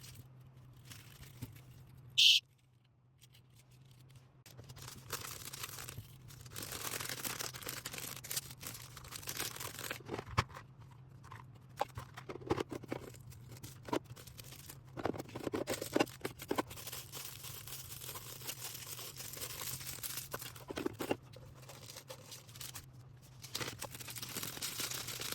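Order packing: plastic packaging crinkling and rustling, with tearing and small knocks as items are wrapped and bagged. About two seconds in there is one brief, loud, high-pitched tone.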